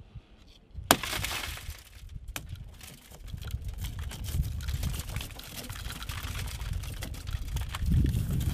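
A car's tempered side window shatters with one sharp crack from a handheld window punch about a second in. The crumbled glass then crackles and trickles as it is broken out of the frame.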